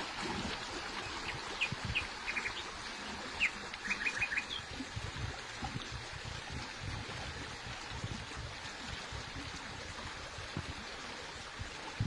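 Small songbird chirping: a few short, high chirps, then a quick run of four about four seconds in, over a steady rushing background noise with low rumbles.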